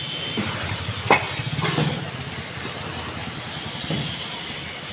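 Tractor engine idling steadily, with a few sharp knocks or clatters, the loudest about a second in.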